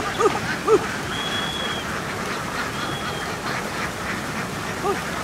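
A flock of domestic ducks quacking: a few loud quacks in the first second and one more near the end, over a steady hiss.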